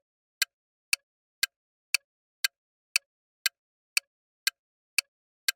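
Countdown timer sound effect: a clock ticking steadily, about two sharp ticks a second, marking the time allowed to answer a quiz question.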